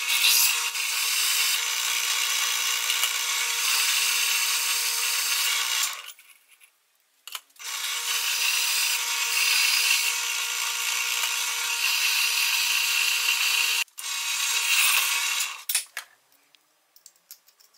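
Bench drill press drilling out a pre-drilled hole in a 19 mm round iron bar: a steady motor whine over a hissing cutting noise. The drilling stops about six seconds in, starts again a second and a half later, and ends with a few short runs near the end.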